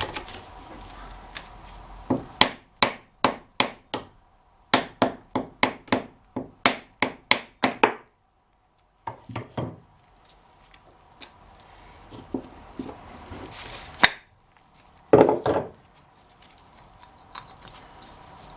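A run of about sixteen sharp taps, roughly three a second, as a hammer strikes parts of a two-speed truck rear axle being dismantled, then a pause and a few scattered knocks and clatter.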